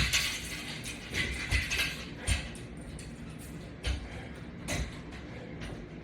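A few light clicks and knocks at irregular intervals, typical of resistance-band exercise hardware shifting and clinking during squats.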